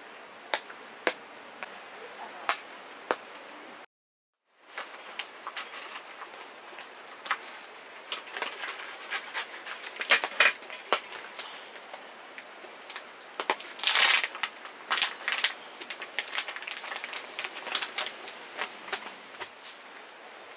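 Raindrops tapping on a tent with a steady rain hiss, then cut off suddenly about four seconds in. After that, a plastic food wrapper crinkling and crackling as it is torn open and handled, loudest about two-thirds of the way through, over continuing rain.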